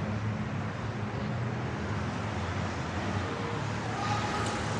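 Street traffic ambience: a steady hum of motor vehicles on the road, with faint short voices or calls near the end.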